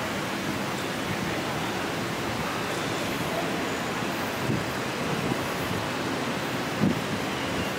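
Steady traffic noise of cars and vans at an airport arrivals curb, with a faint knock near the end.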